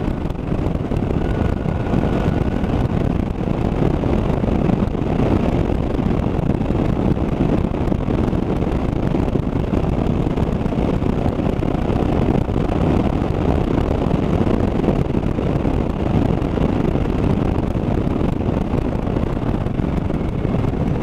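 Motorcycle cruising at a steady road speed: the engine's running is mixed into heavy wind rush on the camera microphone, the level staying steady throughout.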